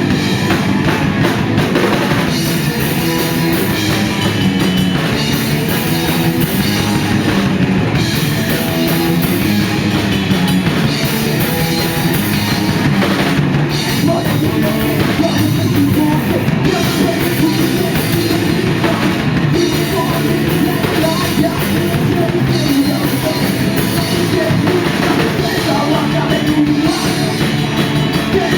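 A punk rock band playing live and loud, with the drum kit driving a steady, unbroken wall of sound.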